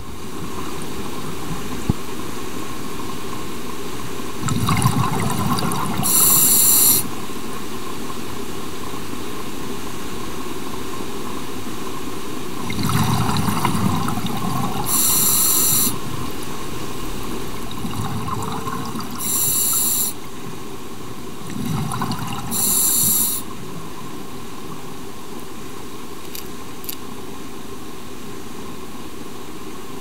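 Scuba diver breathing through a regulator underwater: four breaths, each a burst of rumbling bubbles and a bright hiss, over a steady underwater hiss.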